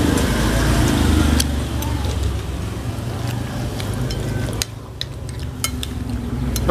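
Metal spoon clicking and scraping against plates during a meal, over a low steady rumble that drops away about four and a half seconds in.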